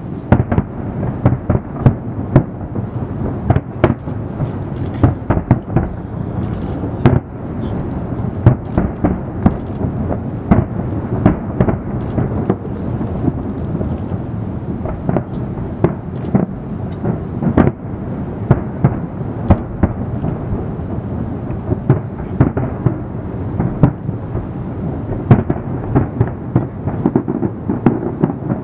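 Aerial fireworks display: a continuous low din of overlapping shell bursts, broken by many sharp bangs, several a second.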